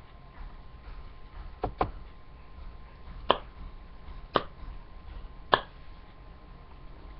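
A person coughing: a quick double cough, then three single coughs about a second apart.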